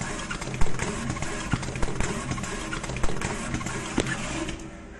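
Automatic rhinestone-setting machine at work on a wax ring model: a steady mechanical hum with irregular sharp clicks, about two a second. The noise drops away near the end.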